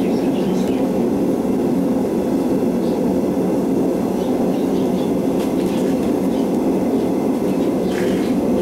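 Gas forge burner running, a steady, unbroken rushing noise. A few faint clicks come near the end.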